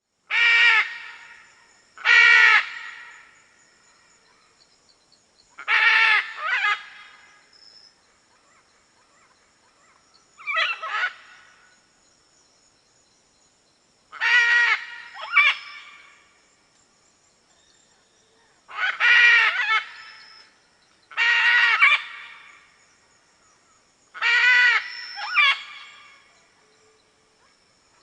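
Red macaw giving loud, harsh squawks every few seconds, some single and some in quick pairs, each fading off in a short echo. A faint steady high whine sits behind the calls.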